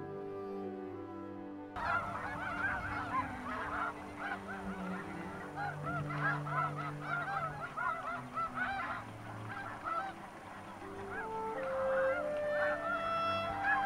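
A large flock of snow geese calling, a dense chorus of many short, overlapping honks that starts about two seconds in, with soft music underneath.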